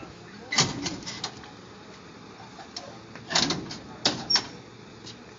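Metal clanks and knocks from the rear cage compartment of a police van as it is handled, in two clusters of sharp strikes: one about half a second to a second in, and another about three to four seconds in.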